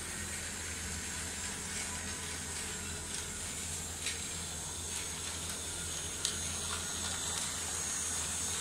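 Battery-powered toy bullet train running on plastic track: a steady motor whirr and hiss, with a few light plastic clicks.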